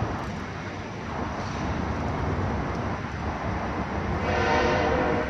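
Steady low rumble of street traffic, with a steady pitched hum joining about four seconds in.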